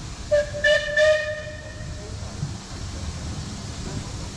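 Steam locomotive whistle sounding a short call of three quick pulses on one pitch, fading out after about a second and a half.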